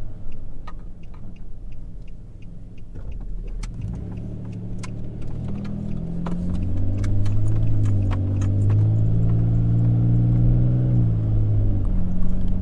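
Nissan Frontier V6 running through a cheap aftermarket catback exhaust and catalytic converters, heard from inside the cab while driving: a low rumble that builds from about four seconds in as the truck pulls, settling into a loud steady low hum before easing off near the end. It is a little noisy.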